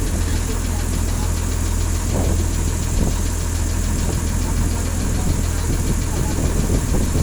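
River ferry boat's engine running steadily, a loud, even low-pitched drone.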